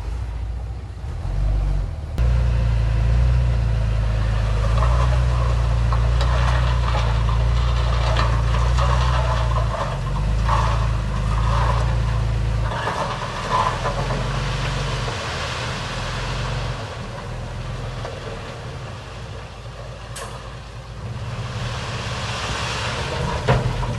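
Heavy diesel earthmoving machinery running steadily, with rattling and scraping over the engine for much of the middle stretch.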